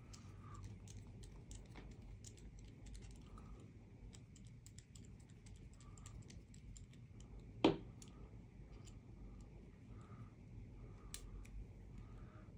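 Faint, irregular small clicks and ticks of a precision screwdriver turning a small screw into a 3D-printed plastic part, with one louder knock a little past halfway.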